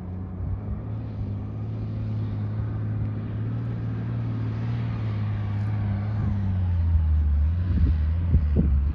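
Off-road vehicle's engine running steadily with a low drone while driving. Its pitch drops a little about two-thirds of the way through, and a few thumps come near the end.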